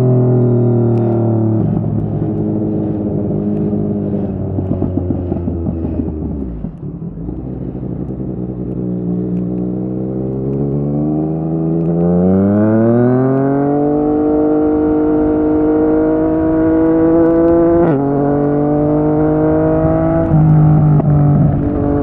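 Yamaha MT-09's three-cylinder engine through a Yoshimura R55 slip-on exhaust, revs falling with a crackle as the bike slows, then pulling hard and rising before two quick upshifts near the end.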